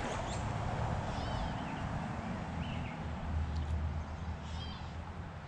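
Outdoor creek ambience: steady rushing of flowing stream water with a low rumble, and a few faint, short bird chirps about a second in, mid-way and near the end.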